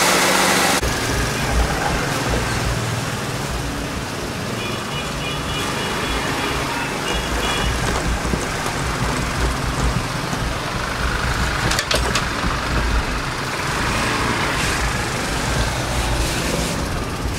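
Outdoor road noise of motor vehicles running, with a low rumble that rises and falls. A short run of high pips sounds about five seconds in.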